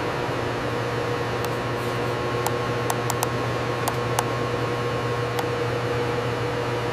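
Steady machine hum and hiss, with scattered sharp clicks about one to four seconds in, cutting off just after the end.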